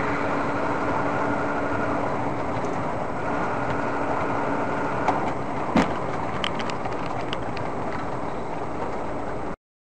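Steady car engine and road noise as heard from a dash camera in a moving car, with a single sharp click about six seconds in and a few faint ticks after it; the sound cuts off suddenly near the end.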